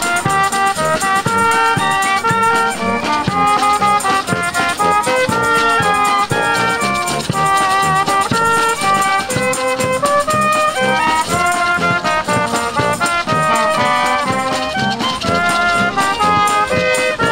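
Street brass band playing a lively march-like tune: trumpets carry the melody over sousaphone bass, with snare drum and bass drum keeping a steady beat and a rattling shaker.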